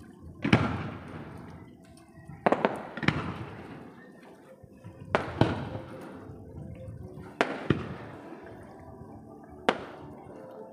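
Aerial fireworks shells going off overhead: sharp bangs, mostly in close pairs, about every two seconds, each followed by a rolling echo.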